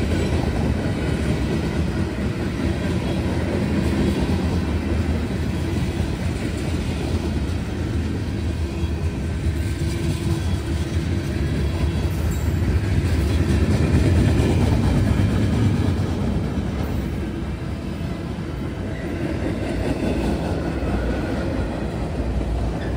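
CSX manifest freight train's cars rolling past on the rails, a steady rumble of wheels on track that swells a little about halfway through.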